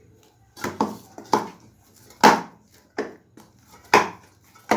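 A ball of oiled paratha dough being turned and slapped by hand in a bowl: about seven short, soft slaps at uneven intervals, the loudest about two seconds in and again about four seconds in.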